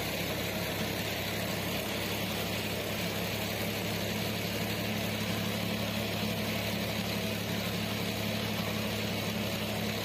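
Tractor engine running steadily while driving a PTO-powered rotavator whose blades churn the soil: one even mechanical drone.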